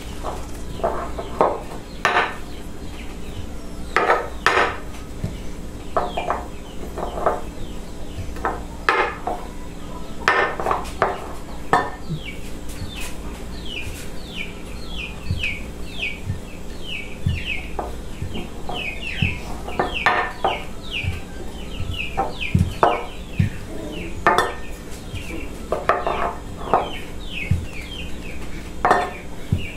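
Chickens clucking, with a run of quick, high chirps that fall in pitch and repeat a few times a second from about twelve seconds in. Intermittent knocks and clatter come from dough being rolled out on a kitchen table.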